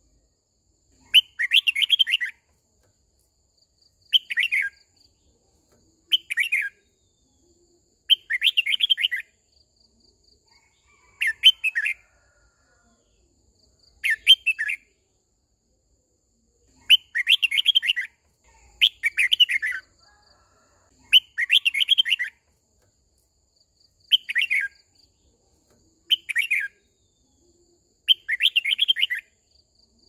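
Red-whiskered bulbul singing: short, quick phrases of a few descending whistled notes, repeated about every two to three seconds with silent gaps between.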